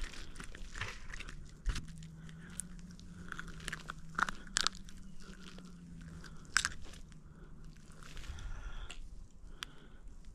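Close handling noises of a caught crappie and fishing tackle: scattered clicks, crunches and scrapes, the sharpest about four and a half and six and a half seconds in. A low steady hum runs under them through the middle few seconds.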